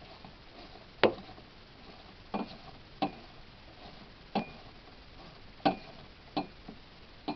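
Irregular sharp metallic knocks, about eight, from a hand tool striking the metal windshield wiper arm, several with a brief high ring.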